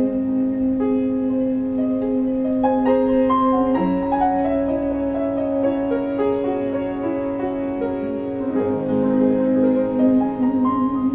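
Slow piano ballad accompaniment playing the closing instrumental bars, with long held notes under shifting chords.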